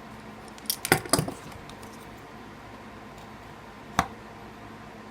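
Wooden popsicle sticks snapped off with pliers: a quick cluster of sharp cracks about a second in, then one more crack about four seconds in.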